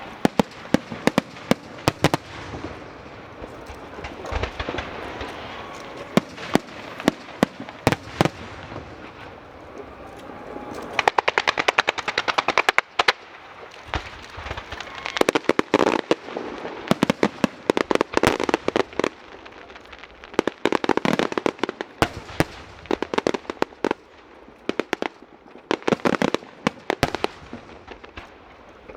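Fireworks display: sharp bangs of bursting shells at irregular intervals over continuous crackling, with a fast rattling run of reports about eleven seconds in.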